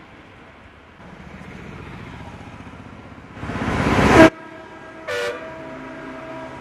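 Traffic on a rain-soaked road. A vehicle swishes past on the wet surface, growing louder for about a second and cutting off suddenly. A short vehicle horn toot follows a second later, over a steady hiss of rain and engine hum.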